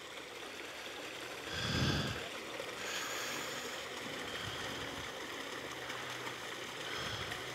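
A yak gives one short, low, breathy snort about two seconds in, over a steady hiss of wind on the microphone.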